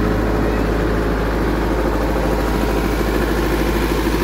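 40 kVA open-frame diesel generator set running steadily with an even low hum; its engine is taken for a Mitsubishi 4D34 four-cylinder diesel.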